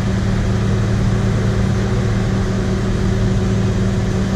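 Vehicle engine running steadily at a constant pace, a continuous low hum over road and wind noise, heard from on board.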